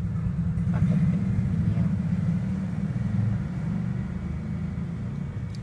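A steady low rumble with no clear pitch, fading a little toward the end.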